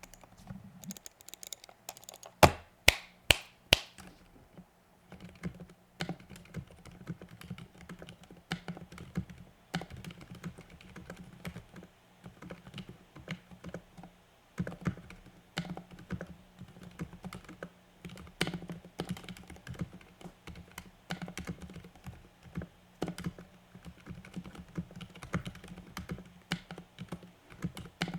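Typing on a Ducky Mecha Mini mechanical keyboard with lubed Cherry MX Silent Red linear switches: a steady run of soft, dampened keystrokes. A few louder, sharper knocks come about two to four seconds in.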